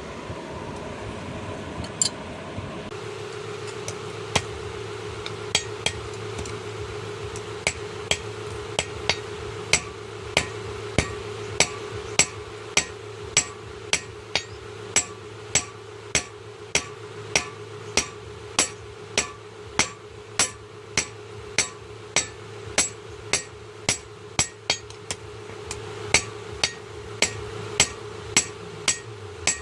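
Blacksmith's hammer striking hot iron on an anvil while forging a khurpi blade, a few blows at first, then a steady run of ringing strikes about one and a half a second, over a steady hum.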